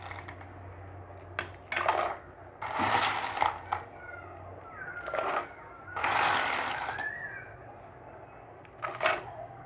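Clams in their shells clattering and rattling as they are tipped into a pot of curry gravy, in several separate bursts over a low steady hum.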